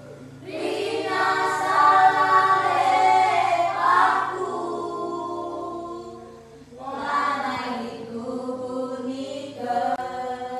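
A group of children singing together in rehearsal, a choir practising for a Christmas show. Two long sung phrases with a short break about six seconds in.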